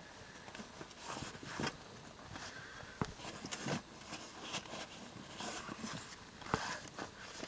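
Scattered knocks, clicks and rubbing of the floor pieces being worked and wiggled into place in an inflatable boat, sharpest about three seconds in and again near the end.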